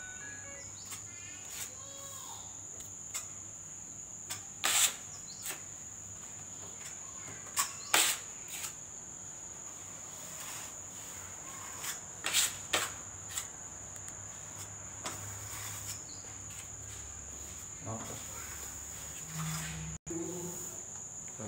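A steady high-pitched insect trill, like a cricket's, runs throughout. Over it come a few short, sharp scrapes and taps from a metal scraper laying wall putty along a straight edge held against a door-frame bead. The loudest come about five, eight and twelve seconds in.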